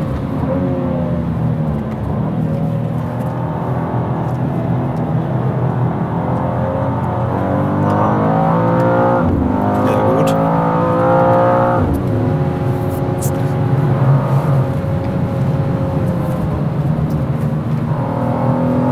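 2023 BMW M2's twin-turbo straight-six running hard under load from inside the cabin, revs rising and falling through the gears. A long pull climbs steadily, then drops suddenly at an upshift about two-thirds of the way through.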